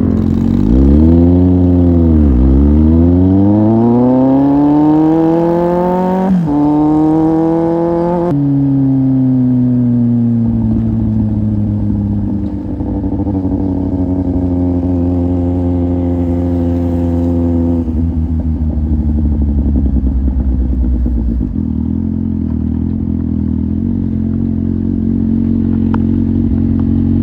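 Kawasaki Z750 inline-four through an Akrapovic exhaust, heard from the bike while riding. The engine note dips, then climbs hard through a gear change about six seconds in. The throttle closes about eight seconds in and the note winds down into steadier running, stepping lower again near eighteen seconds.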